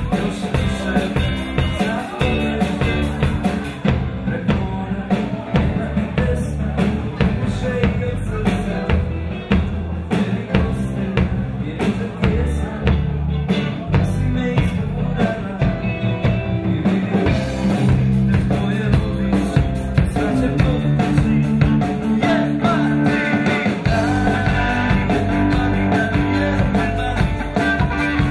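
Live rock band playing: drum kit, electric bass and electric guitar together in a steady beat.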